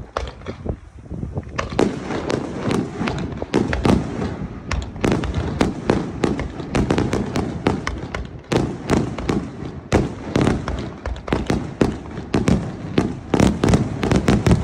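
Aerial fireworks bursting in a rapid barrage, many sharp cracks and booms overlapping over a continuous rumble, growing denser about two seconds in.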